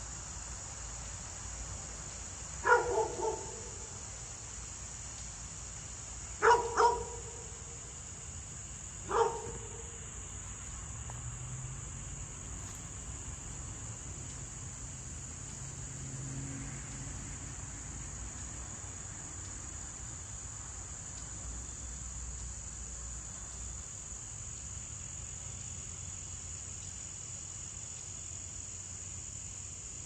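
A dog barking in three short bouts in the first ten seconds: a quick run of about three barks, then two, then a single bark. Under it, a steady high chirring of crickets continues throughout.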